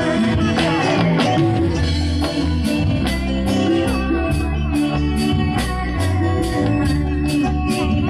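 Live band playing amplified pop music: a drum kit with steady cymbal strokes, a bass line, electric guitar and keyboard.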